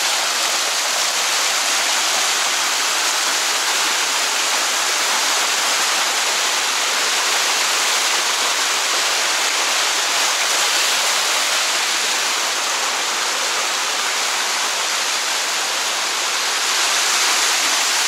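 Waterfall running at low water, its cascading flow making a steady, even rush.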